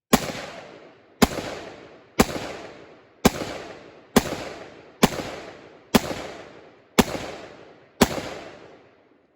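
Gun fired nine times in steady succession, about one shot a second, each report fading out before the next.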